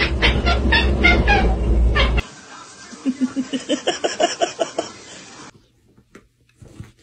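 Cat vocalising: a loud stretch of rapid short cries over a deep rumble, which cuts off about two seconds in. Then comes a quieter quick run of short calls, about five a second, which stops about five and a half seconds in.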